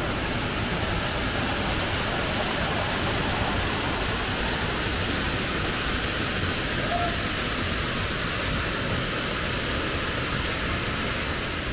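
Waterfall about 20 m high in heavy rainy-season flow: a steady, unbroken rush of falling water.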